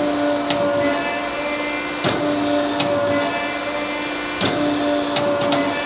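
Samco TC-75 75-ton die cutter running with a steady hum while its cutting head cycles up and down, a sharp click at each stroke about every two seconds. The cycling stays fairly quiet, with no loud bang as the head comes down.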